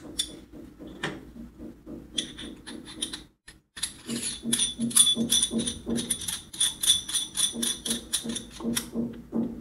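Machined aluminium parts of a coffee distribution tool/tamper being screwed back together by hand: light metallic clicking as the threaded parts and knurled ring turn, becoming a steady run of about three clicks a second from about four seconds in.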